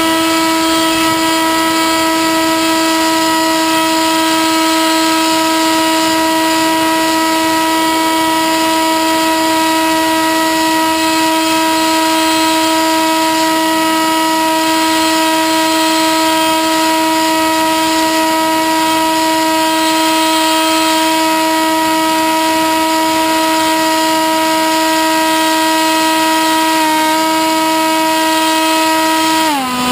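Sky Surfer RC plane's electric motor and propeller whining at a steady high throttle through a climb, heard from the onboard camera with wind hiss over the microphone. Near the end the pitch dips for a moment, then falls as the throttle is eased back.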